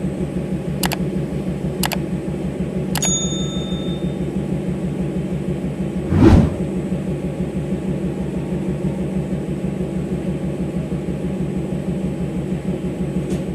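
Diesel locomotive engine running steadily with a low, fast-pulsing drone, with one short louder surge about six seconds in. Three sharp clicks come in the first three seconds; the last rings briefly like a small bell.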